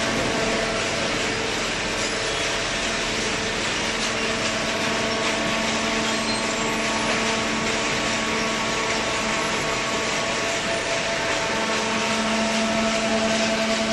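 Hydraulic cardboard baler running: a steady machine hum with a whine over continuous noise, the hum growing a little stronger near the end.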